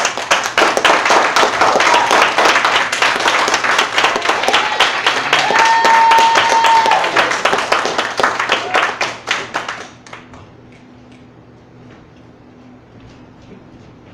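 Audience applauding at the end of a poem, clapping steadily for about ten seconds and then dying away to a few last claps.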